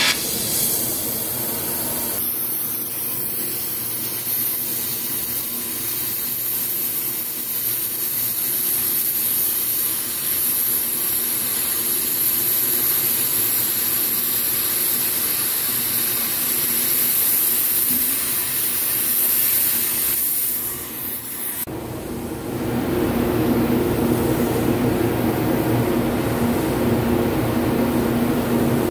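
Oxy-fuel cutting torch hissing steadily as its jet cuts through steel. About 21 seconds in, the hiss gives way to a lower, steady drone.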